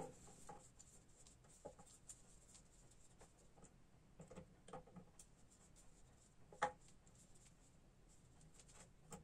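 Faint scratchy ticks and small metal clicks of a screw being tightened with pliers on a graphics card's cooler, with one sharper click about six and a half seconds in.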